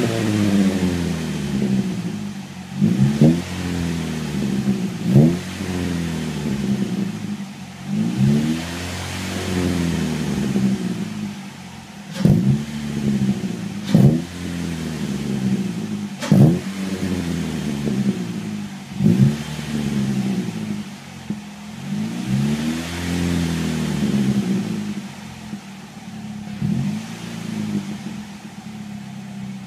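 Chevrolet Cobalt's four-cylinder engine heard through its MagnaFlow exhaust, revved in a series of quick throttle blips and a couple of slower swells, each dropping back to idle.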